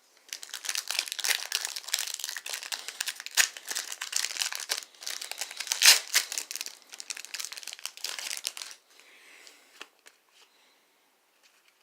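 Plastic wrapping on a pack of trading cards is crinkled and torn open by hand, with one loud sharp rip near the middle. The crinkling stops about three seconds before the end, leaving a few light clicks.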